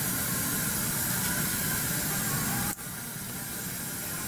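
Steady hiss with a low hum underneath, which drops abruptly in level a little under three seconds in and then carries on more quietly.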